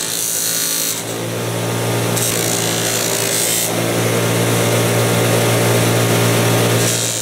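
Electric buffer's cloth buffing wheel running with a steady motor hum while steel pliers are pressed against it, the buff rubbing the metal with green polishing compound. The hum grows stronger about a second in.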